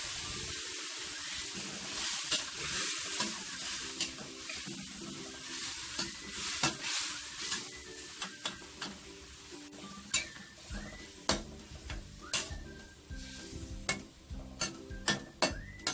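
Sizzling of boiling water and soy sauce hitting a hot pan of fried chicken drumsticks, loudest at first and dying down over the first several seconds, with stirring in the pan and, in the second half, sharp clicks of a utensil against the pan.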